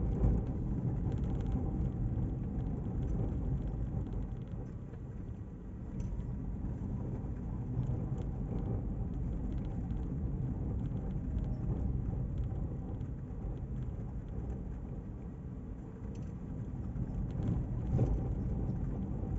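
Steady low rumble of a car driving slowly through town streets: engine and tyre noise heard from inside the cabin.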